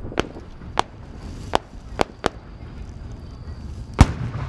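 Aerial firework shells going off: a series of about six sharp bangs at uneven spacing, the loudest near the end, over a steady low rumble of open-air background.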